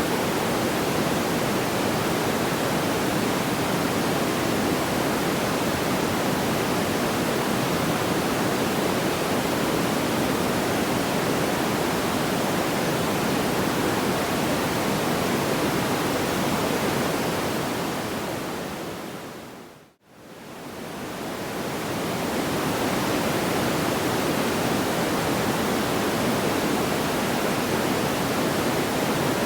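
Steady rushing noise, much like pink noise, with no distinct crackles or pops. About two thirds of the way through it fades smoothly out to near silence and then fades back up over a couple of seconds, the joint where the looped recording starts over.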